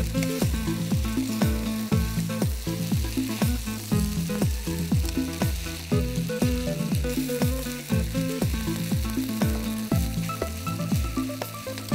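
Stir-fried noodles and vegetables sizzling in a hot pan as they are tossed and stirred with a wooden spatula. Under it runs background music with held bass notes and a steady low drum beat about twice a second.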